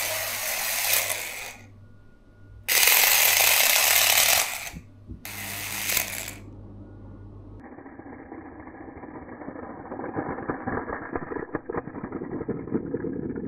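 Tiny 1/64-scale Hot Wheels RC car's electric motor whirring hard in three short bursts as it is driven. From about halfway through comes a lower, rattling buzz that grows louder as the car keeps running.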